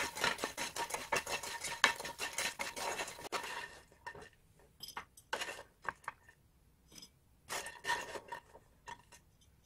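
Wooden spatula stirring and scraping sugar-coated fried ramen pieces around a nonstick frying pan: a dense run of scrapes and clicks for about four seconds, then scattered scrapes and taps as the pieces are scooped out of the pan.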